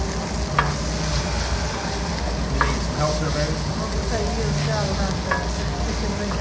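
Wooden spatulas stirring and scraping fried rice across a hot griddle plate, over a steady sizzle, with a few sharp clicks as a spatula knocks the plate.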